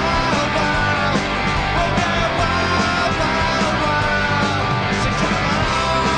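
Rock music with guitars and a steady beat, laid over the footage as a soundtrack.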